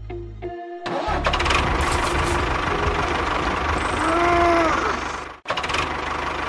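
A little music, then about a second in an engine starts and runs with a steady, knocking rumble. It drops out briefly near the end, then runs on.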